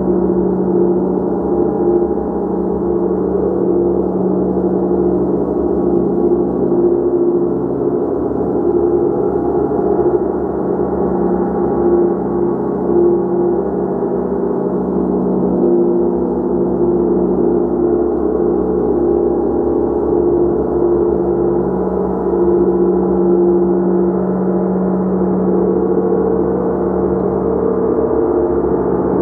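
Gong played continuously, a dense, sustained wash of overlapping deep tones that swells slightly now and then, with no single strike standing out.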